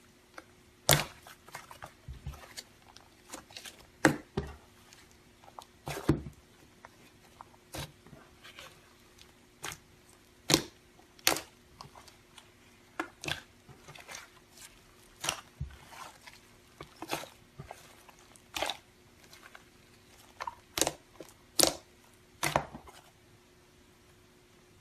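Slime being squished and worked by hand, giving irregular sharp sticky pops and clicks about once or twice a second.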